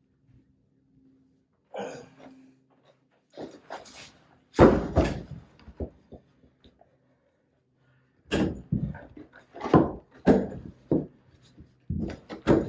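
Heavy hearth stones being pried and shifted, giving a series of loud, irregular thunks and knocks of stone on stone, with quiet pauses between them.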